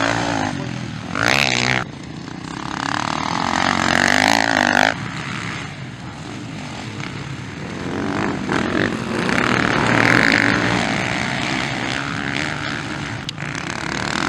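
Motocross bike engines revving up and backing off repeatedly as they race past on a dirt track. The loudest surges come about a second in, around four seconds in, and again around ten seconds in.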